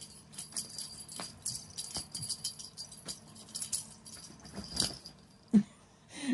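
Small bell on a cat toy jingling in quick, irregular shakes as the cats play with it. About five and a half seconds in comes a brief, louder low sound.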